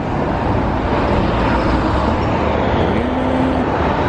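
Motor vehicle running with steady road and traffic noise, a continuous low rumble. About three seconds in, a short whine rises and holds briefly.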